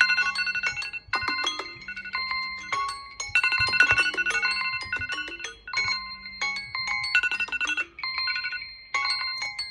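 Smartphone alarm tones ringing: melodic chime phrases that repeat every couple of seconds and overlap one another, with a low buzz switching on and off beneath them.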